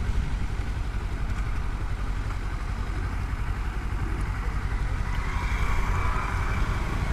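Kawasaki Versys-X 300's parallel-twin engine running at low revs, heard through a helmet-mounted microphone, with a steady low pulsing. A higher hum joins about five seconds in.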